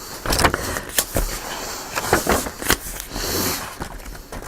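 Paper and cardstock pages of a handmade journal rustling and crinkling as they are handled and turned, with several sharp taps and crackles.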